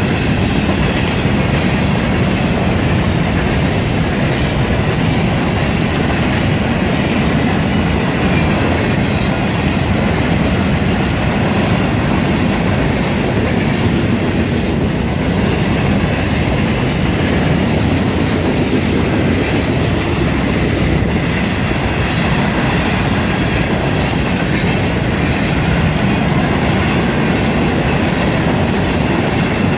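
Freight cars of a passing Florida East Coast Railway train rolling by at close range: loud, steady wheel-and-rail noise with clickety-clack and faint wheel squeal.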